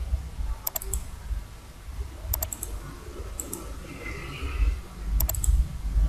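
Computer mouse clicking: four quick pairs of sharp clicks, spread a second or more apart, over a low rumble.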